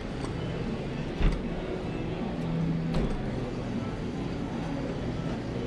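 Arcade claw machine's motors whirring as the claw is steered into position, over a steady arcade din, with a single thump about a second in.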